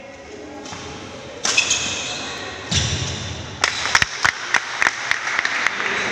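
Badminton doubles rally on a wooden indoor court. A sudden sharp hit comes about a second and a half in, then a heavy thud on the floor as a player goes down, followed by a quick run of about ten sharp clicks.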